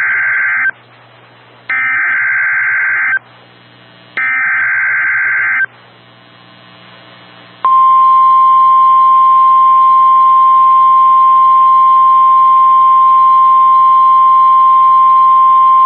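Emergency Alert System broadcast on NOAA Weather Radio. Three short bursts of buzzy digital SAME header data, with radio hiss between them, signal a severe thunderstorm watch. About two seconds after the last burst, the steady single-pitch 1050 Hz weather-radio alert tone starts and holds for about nine seconds.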